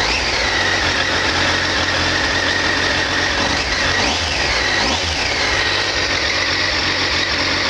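Triumph T595 Daytona's 955cc three-cylinder engine idling steadily on a cold engine, with a thin whine above the idle that dips and comes back up about halfway through.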